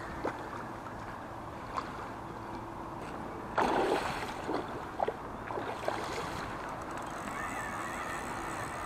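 Hooked fish splashing and thrashing at the surface close to the bank, with one louder splash a little over three and a half seconds in and a few smaller slaps and clicks around it, over a steady background hiss.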